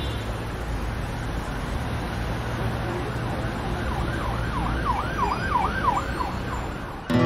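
Siren wailing in fast up-and-down sweeps for about two and a half seconds, over a steady low rumble; music starts right at the end.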